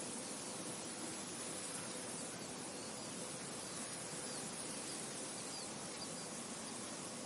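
Steady outdoor ambience of wind with insects, and a few faint, short high bird chirps in the middle.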